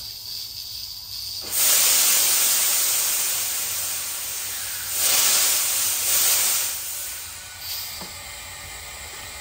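Compressed air blasting out through the high-pressure air compressor's built-in drain valves as they are opened after a fill. A loud hiss starts about a second and a half in, surges again around five and six seconds, then tapers off.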